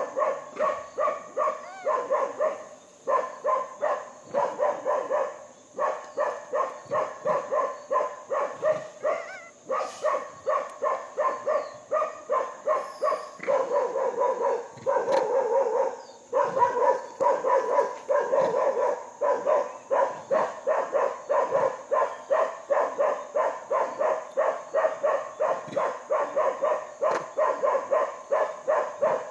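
An animal calling over and over in a fast, even series of short pitched calls, about three or four a second.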